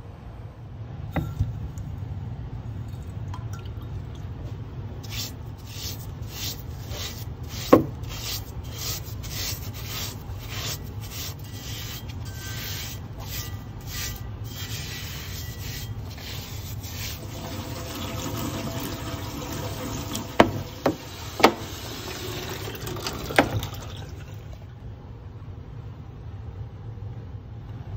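Repeated rubbing or scrubbing strokes, about two a second, on a wet brake drum during acid rust removal, over a steady low hum. A few sharp knocks follow, three close together and one more about two seconds later.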